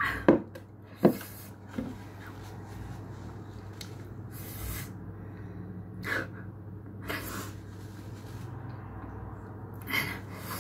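A woman's short breathy throat and mouth sounds: a few sharp catches of breath near the start and a couple of longer exhalations later, over a steady low hum.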